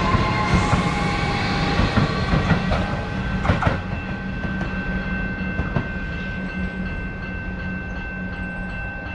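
Electric suburban train running along the track, a steady rumble with a high steady whine and a few sharp clicks of wheels over rail joints, gradually getting quieter.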